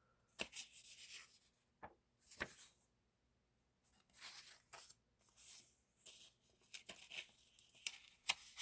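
Quiet paper handling: sheets of stickers and printed paper being shuffled and turned over, in short soft rustles with a few light taps.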